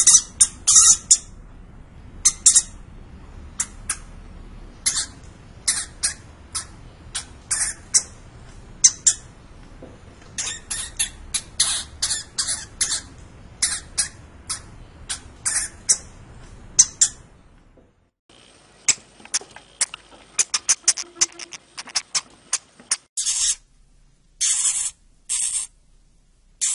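Hamster squeaking: many short, sharp, high-pitched squeaks in quick, irregular runs. A faint background hiss stops about two-thirds of the way through, leaving the squeaks on their own.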